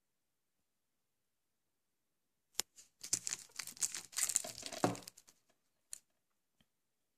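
A shrink-wrapped DVD case being picked up and turned over by hand: its cellophane wrap crinkles for about two seconds, with a click just before and another after.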